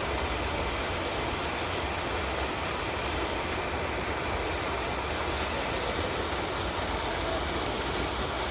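River water rushing, a steady, even noise with a deep rumble.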